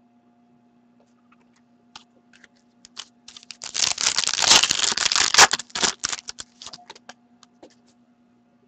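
A stack of trading cards handled and shuffled in the hands. A few light clicks come first, then a dense run of rapid papery flicks and rustling about four to six seconds in, tapering off to scattered clicks.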